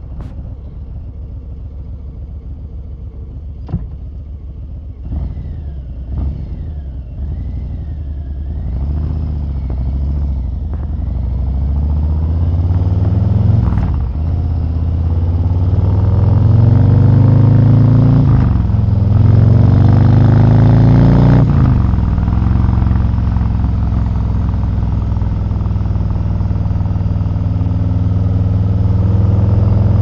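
Harley-Davidson Milwaukee-Eight 117 V-twin through TAB Performance slip-on mufflers, idling steadily, then pulling away and accelerating through the gears. The pitch rises and drops back at each of three upshifts before the engine settles into a steady, louder cruise.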